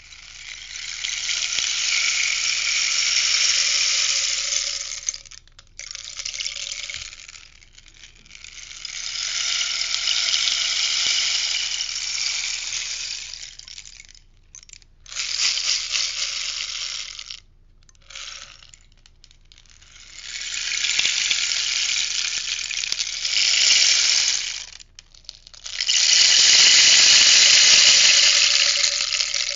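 Rainstick tipped over and over. Each turn sends its fill trickling down in a rustling cascade. There are about seven pours of a few seconds each, a couple of them brief, with short pauses between.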